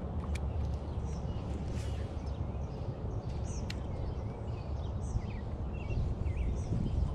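Several birds chirping and singing in short, quick calls, over a steady low rumble.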